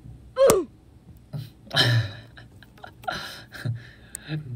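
A stretched rubber band snaps once with a sharp crack about half a second in. A man's short wordless murmurs and breaths follow.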